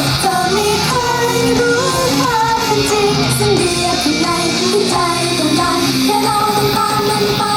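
Female idol-group vocalists singing a Thai-language pop song over loud, steady pop accompaniment, heard through the venue's sound system.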